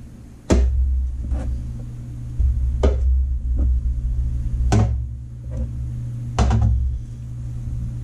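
About eight irregular knocks and thuds, the loudest about half a second in and again near the middle, with stretches of low rumble after several of them.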